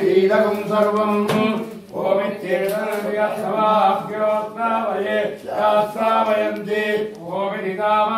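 Men chanting Sanskrit Vedic mantras in a continuous recitation, phrase after phrase, over a steady low hum.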